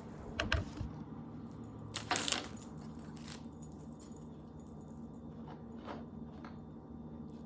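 Small hard pieces being handled on a table: a couple of light clicks, then a short rattling clatter about two seconds in, followed by a few faint ticks.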